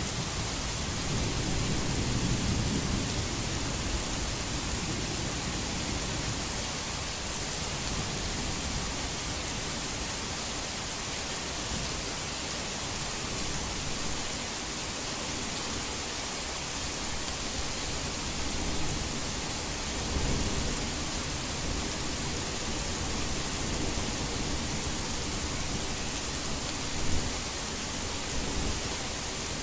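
Heavy rain falling in a steady, even hiss, with low rumbles of distant thunder swelling about two seconds in and again around twenty seconds. A short, sharp louder hit near the end.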